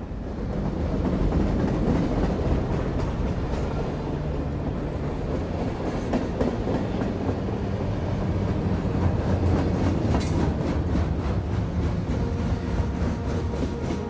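Train running past, a steady low rumble with the wheels clacking over the rail joints.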